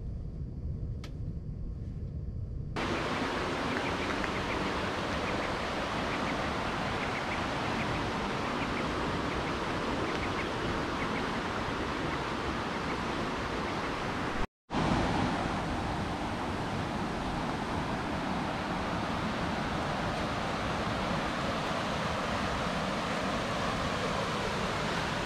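Steady rush of running water that sets in a few seconds in, after a low rumble, and breaks off for a moment about halfway through at a cut before carrying on unchanged.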